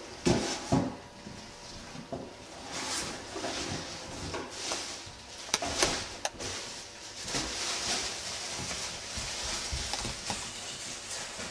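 Knocks and scrapes against wooden furniture, with two sharp thumps in the first second and a few lighter clicks around the middle, over a rustling, shuffling background.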